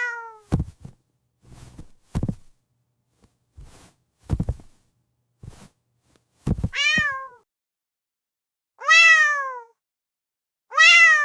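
A domestic cat meowing: three drawn-out meows, each rising briefly and then falling in pitch, about two seconds apart in the second half, with the end of another meow right at the start. Before the meows comes a scatter of dull thuds and knocks.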